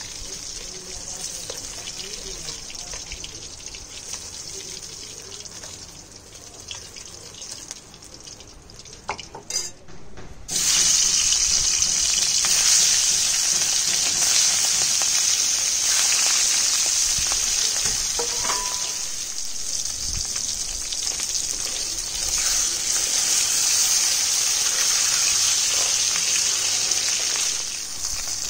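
Pieces of rohu fish frying in hot oil in a kadai, a steady sizzling hiss that becomes much louder about ten seconds in and stays loud almost to the end. They are being fried lightly, not crisp.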